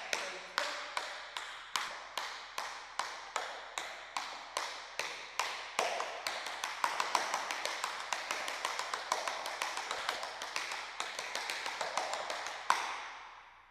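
Tap shoes' metal taps striking a wooden board in a run of linked shuffle steps, brushes and steps in a steady rhythm. About halfway through the taps come faster and denser, and they end on one louder tap near the end that echoes away.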